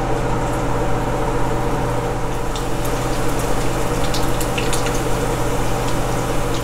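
Chicken pieces deep-frying in hot oil: a steady sizzle and bubbling with a few small crackles, over a low steady hum.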